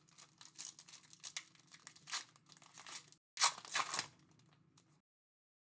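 Trading-card pack wrappers crinkling and tearing as packs are opened by hand, in irregular rustles with the loudest burst about three and a half seconds in. The sound cuts off to dead silence about five seconds in.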